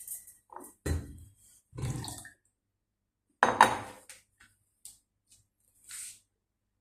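Kombucha tea being poured into a glass jar holding the scoby: a handful of short splashes and clinks of glass, each dying away quickly. The loudest comes about halfway through.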